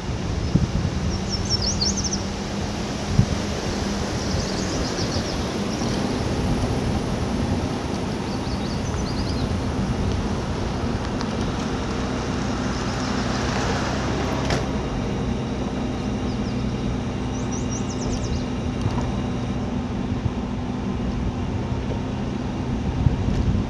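An engine running steadily at an even pitch that steps up a little about six seconds in, with birds chirping briefly a few times.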